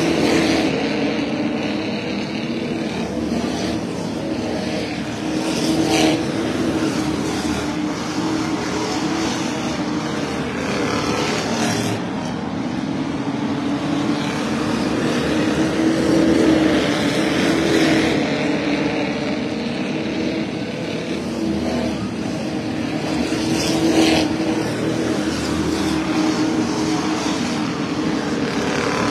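A field of stock cars racing around the oval, their engines a continuous drone that swells several times as cars pass close by.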